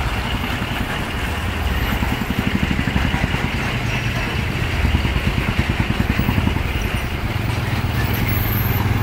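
Truck engine running, a steady low rumble that takes on a fast pulsing throb for a few seconds in the middle.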